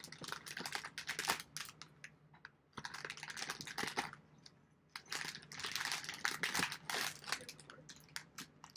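Plastic snack wrapper crinkling and rustling as it is handled, in several bursts of crackly clicks with short pauses between.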